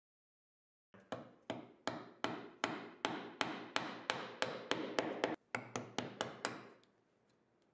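Chisel being tapped with a mallet to square the rounded corner of a routed dovetail groove in a cherry panel: about eighteen short, sharp strikes at roughly three a second, starting about a second in and stopping shortly before the end.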